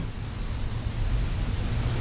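Steady background hiss with a low rumble underneath, growing slightly louder toward the end.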